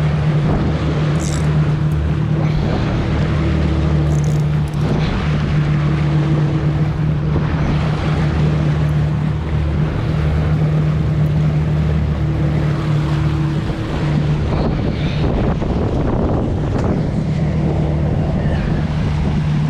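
Boat's outboard motor running at a steady low hum, with wind buffeting the microphone.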